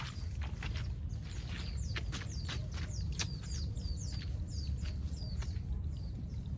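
A bird calling a rapid series of short, sharp, down-slurred chirps, about three a second, for a few seconds in the middle, over a steady low rumble.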